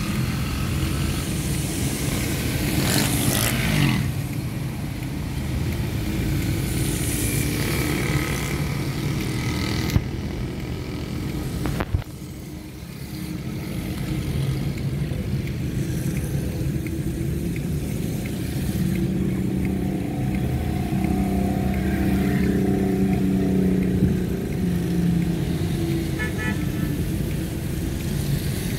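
Traffic on a wet road: motorcycle and car engines running and passing at low speed, a steady rumble with shifting engine hum.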